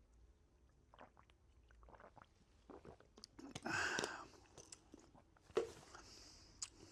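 A person drinking: faint sips, swallows and mouth clicks, with one louder breathy sound about four seconds in.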